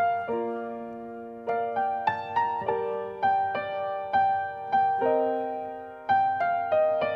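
Background music: a slow solo piano plays gentle melody notes over chords, each note struck and left to fade.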